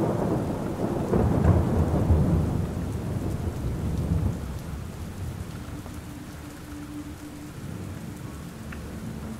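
Thunder rumbling over steady rainfall. The rumble is loudest in the first few seconds and dies away by about four seconds in, leaving the even hiss of rain.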